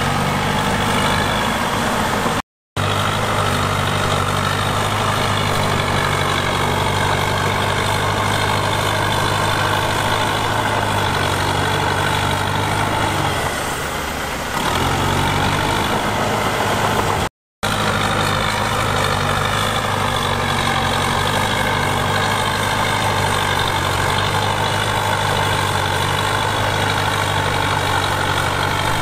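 Diesel engine of heavy earthmoving machinery running steadily. It eases off briefly about halfway through, then picks back up. The sound cuts out completely for an instant twice.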